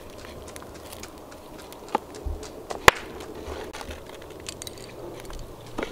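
A few scattered sharp knocks and clicks, the loudest nearly three seconds in, over a faint low rumble.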